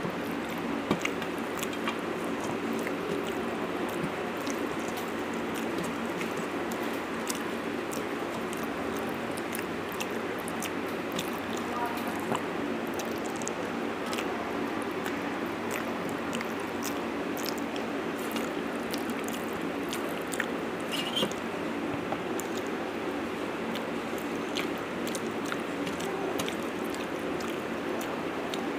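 Eating by hand from a steel plate: fingers picking fish off the bone and mixing rice, with many small sharp clicks of fingers on the steel and chewing, over a steady background hum.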